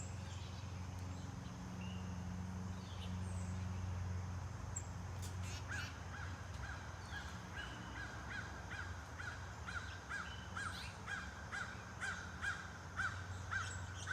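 A bird calling over and over, a short call about twice a second, starting about six seconds in, with faint higher chirps before it. A steady low hum runs underneath.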